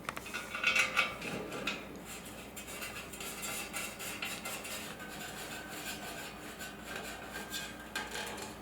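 Small steel frame parts clinking, rattling and rubbing as they are handled and fitted together: irregular light metallic clicks, a little louder about a second in and near the end.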